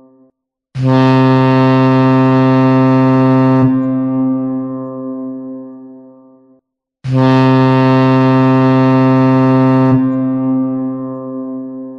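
Ship's horn sounding two long, low blasts. Each is held steady for about three seconds, then dies away over about three more. A short gap separates them, and the tail of an earlier blast fades out at the very start.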